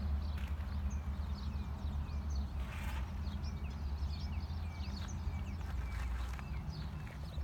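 Several small birds chirping in quick, short notes over a steady low rumble, with a single scuff about three seconds in.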